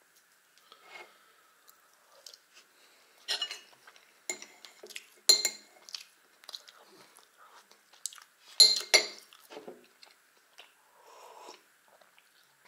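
Metal spoon clinking and scraping against a ceramic plate, several sharp strikes with a double clink near the middle, between bouts of chewing.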